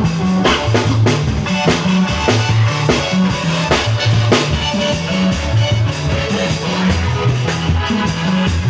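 Live band playing instrumental worship music: drum kit keeping a steady beat under a moving bass line and guitar.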